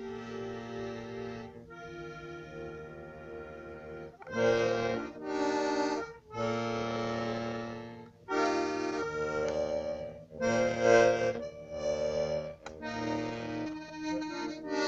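Button accordion playing held chords, softly for the first four seconds, then louder chords in blocks of about two seconds with brief breaks between them.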